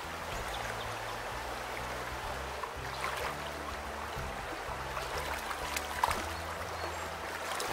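Shallow brook water running over stones, a steady rushing, with low rumbling on the microphone underneath.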